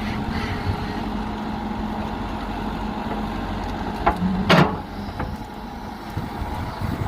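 Diesel engine of a JCB backhoe loader running steadily, with two sharp knocks about four seconds in that are the loudest sounds, after which the engine goes a little quieter.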